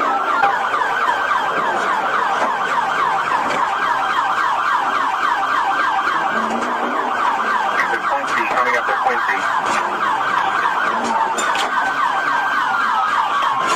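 Police car siren in its fast yelp mode, rapid falling whoops at about four or five a second. It rises out of a slow wail at the start and falls back into a slow wail near the end.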